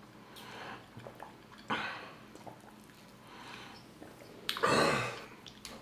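Close-miked mouth sounds of people eating and drinking: a few soft breathy noises about every second and a half, and a louder one about four and a half seconds in.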